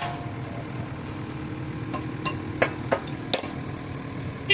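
Kubota U50 mini excavator's diesel engine idling steadily, with a few sharp metallic knocks of a hammer on steel parts about two to three and a half seconds in, and a louder strike at the very end.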